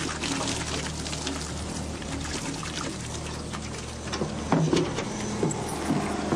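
Water splashing and trickling over a low steady hum, with a few louder knocks about four and a half seconds in.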